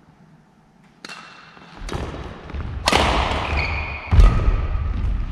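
Badminton rally on a wooden gym floor: sharp racket strikes on the shuttlecock, roughly one a second, starting about a second in, with shoes squeaking on the court. The loudest sound is a deep thud from a heavy footfall near the end.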